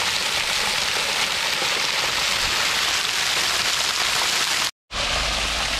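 Water from a free-flowing borewell pipe falling and splashing onto gravel and stones: a steady, even splashing hiss like heavy rain. It drops out abruptly for a moment about five seconds in.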